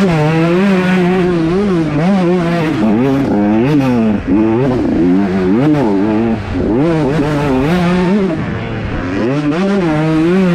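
125cc motocross race bike engine revving hard. Its pitch climbs and drops again and again, about once a second, as the throttle is opened and closed. It falls away briefly about four seconds in and again a couple of seconds later.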